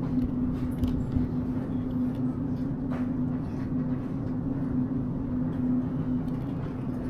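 Steady mechanical hum with one constant tone, the sound of the supermarket's freezer cabinets and refrigeration running.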